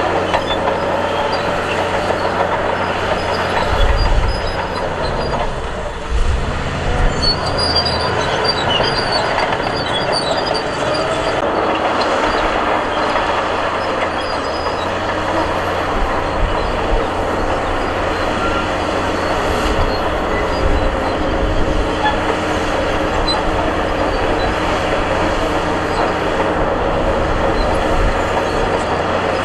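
Crawler bulldozer at work: a steady diesel engine drone with metallic track clanking and squeal, and a few low thumps about four and six to seven seconds in.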